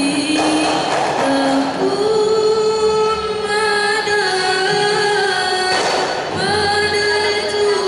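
Girls' maulid group singing a devotional praise song through a microphone, a female lead voice holding long notes that slide between pitches, with a few frame drum beats.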